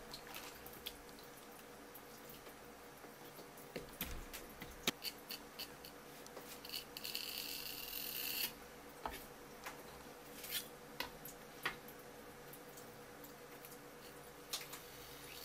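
Faint scattered taps, knocks and rubs of hands handling a conger eel on a wooden cutting board, with a brief hiss about seven seconds in. A faint steady hum runs underneath.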